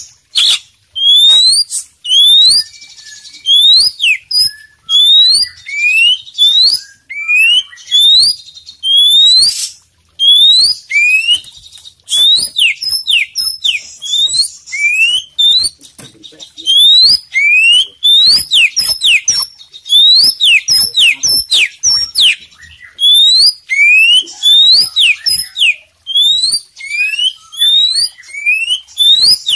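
Oriental magpie-robin (kacer poci) singing loudly and without pause: bursts of rapid, upward-sweeping whistled notes, some high and piercing, broken by short scratchy chattering passages. It is in full song, with mimicked phrases of other birds woven in.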